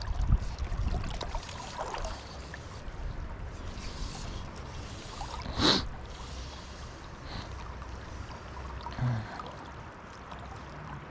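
Steady rush of fast river water flowing around a wading angler, with one brief sharper sound about six seconds in.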